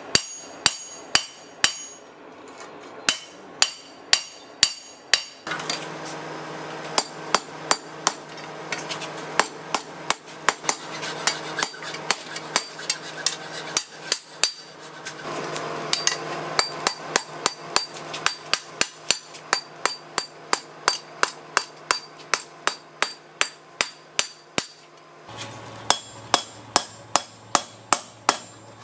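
Hand hammer striking hot steel on an anvil in a steady rhythm of about two to three blows a second, each blow followed by a bright metallic ring.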